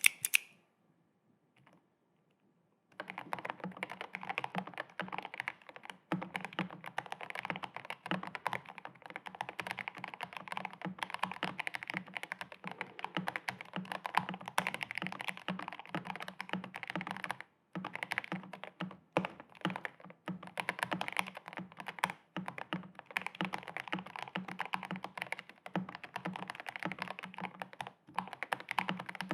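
Fast, continuous typing on an Epomaker GK96S mechanical keyboard with lubed Gateron Yellow linear switches and GK2 silicone keycaps, beginning about three seconds in after a single sharp click, with a few brief pauses in the keystrokes.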